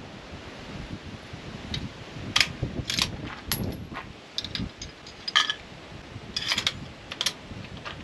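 A bolt-action rifle being handled at a shooting bench: about seven separate sharp metallic clicks and clinks as the action and metal parts are worked, with no shot fired.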